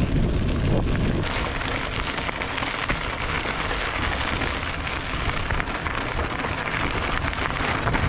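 Goodyear Connector 700c x 50 mm gravel tyres rolling over a loose gravel road: a steady crunching crackle of small stones under the tread.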